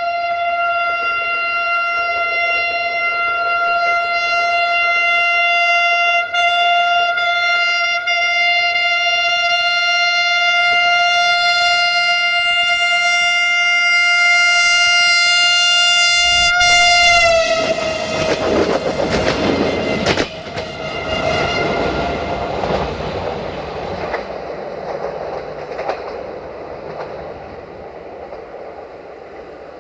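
Siemens Desiro VT642 diesel railcar sounding one long, steady horn note as it approaches; about seventeen seconds in the horn's pitch drops slightly as the train reaches the microphone and the horn fades out. Then the noise of the railcar running past, with clicks from the wheels, fading as it goes away.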